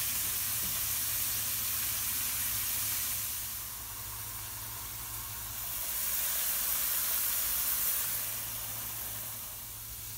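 Cut potato fries frying in hot vegetable oil in a frying pan: a steady, hissing sizzle that eases off for a couple of seconds in the middle and again near the end.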